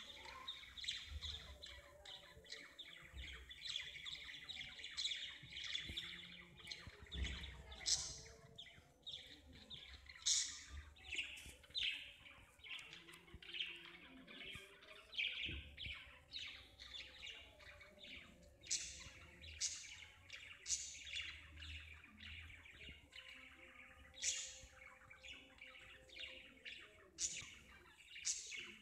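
Birds chirping: a steady chatter of many short, high chirps.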